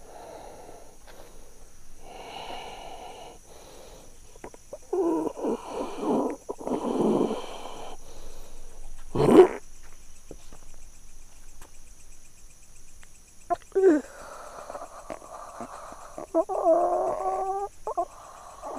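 A man in a trance grunting, breathing hard and groaning, not speaking, as the spirit said to possess him is sent away. A sharp loud cry comes about nine seconds in, and a long wavering moan near the end.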